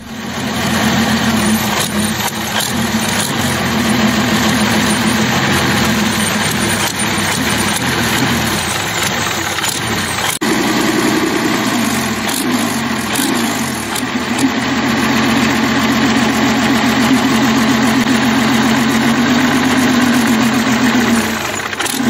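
Soviet V-2-34 V12 tank diesel running on a test stand through short open exhaust stacks, a loud, steady, deep multi-cylinder drone. About a third of the way in the engine note lifts and then settles back down over a few seconds before running steady again.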